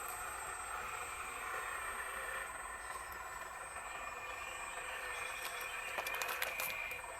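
An excavator running steadily, with several steady high whining tones, and a quick run of clicks or rattles about six seconds in.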